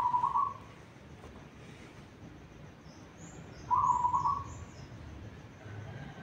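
Zebra dove (perkutut) cooing: two short phrases of quick, stuttering coo notes, one right at the start and one about four seconds in. Faint high chirps from a small bird sound during the second phrase.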